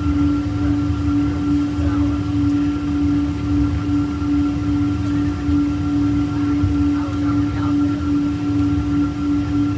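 Steady cabin drone inside a Boeing 777-200 moving on the ground, its jet engines at low power: an even hum tone over a low rumble.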